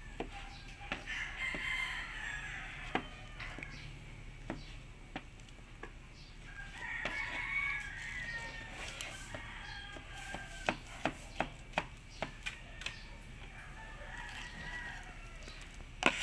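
A rooster crowing three times in the background, over sharp knocks of a knife blade on a plastic cutting board as bananas are sliced. The knocks come singly at first, then in a quick run of about eight chops past the middle.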